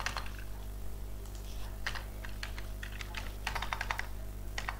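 Typing on a computer keyboard: scattered keystrokes, then a quick run of several keys about three and a half seconds in, over a steady low hum.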